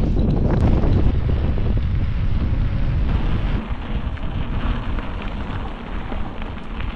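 Wind buffeting the microphone of a camera on a moving bicycle, over the rumble of tyres on a rough farm track. The noise is heavy and low and drops somewhat about three and a half seconds in.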